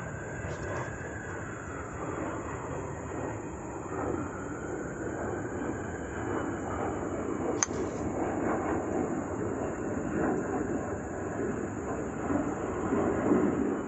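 Steady outdoor rumble of background noise with a faint whine that rises and falls, and one sharp crack about halfway through: a golf club striking the ball on a full shot from the fairway.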